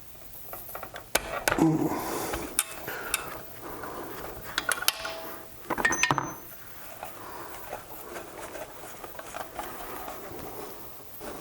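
Metal tools and small engine parts clinking and knocking against one another, with irregular sharp clicks, a few of which ring briefly, as a small engine is taken apart at the connecting rod.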